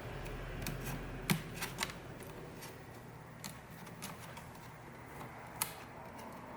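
Display bezel trim of an MSI GS65 Stealth laptop being pried off with a pry tool. Sharp little plastic clicks as its plastic tabs let go, the loudest about a second in, amid faint scraping and handling.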